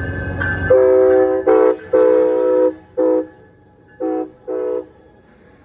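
Train running with a low rumble and a bell ringing at a steady beat. From about a second in, a locomotive's multi-note air horn sounds a series of blasts, some long and some short, with two short blasts near the end.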